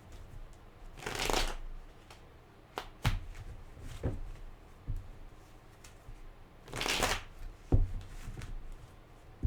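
Tarot cards being handled: two brief swishing shuffles of the deck, about a second in and again near seven seconds, with several light taps and clicks in between.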